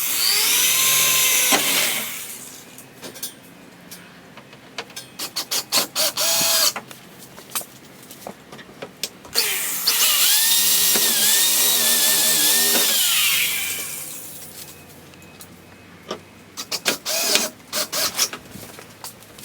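Power drill running in two longer bursts, its motor pitch rising and falling as the trigger is squeezed and eased, with clusters of quick short blips in between.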